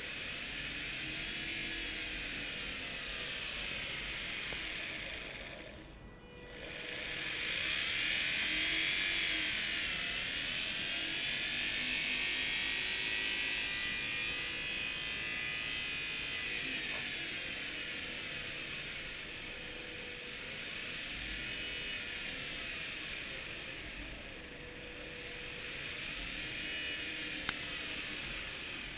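Commutator (universal) motor from an old washing machine running under electronic speed control, its whine rising and falling in slow swells every few seconds. About six seconds in it drops away almost to a stop, then picks up again.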